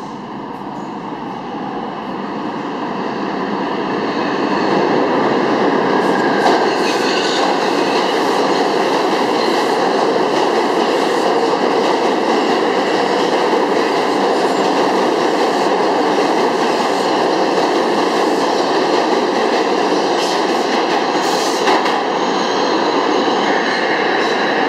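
New York City subway express train of R142/R142A cars running through an underground local station on the express track. Its wheels rumble and clatter on the rails, building over the first five seconds and then staying steady and loud, with a couple of brief sharp high bursts of noise.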